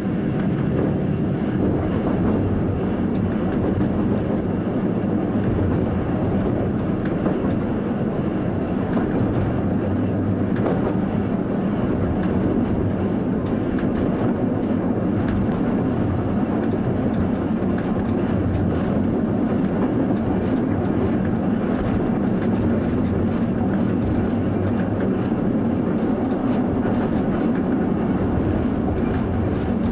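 Train running along the track, heard from inside the driver's cab: a steady rumble of wheels on rails with occasional faint clicks.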